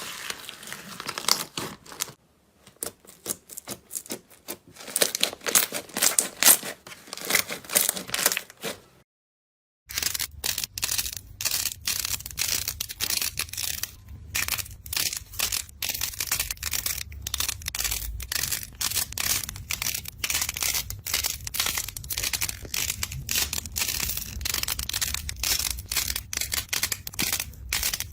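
Slime being pressed, poked and stretched by hand, giving dense crackling and popping clicks. The sound cuts out for about a second around nine seconds in, then a second run of slime crackling follows with a low hum underneath.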